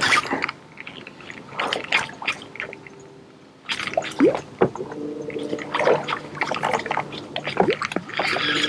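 Small Pop-R P50 topwater popper retrieved fast across the water surface: irregular splashy, gurgling pops of water, one after another.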